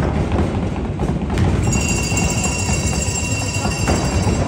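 Rapid, dense thumping of many feet in a gym. A steady electronic scoreboard buzzer sounds over it from about a second and a half in, for about three seconds.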